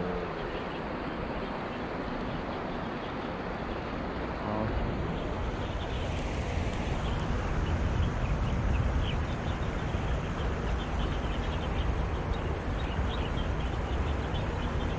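Steady rush of water over a shallow, rocky river riffle, with wind buffeting the microphone that grows stronger about four and a half seconds in.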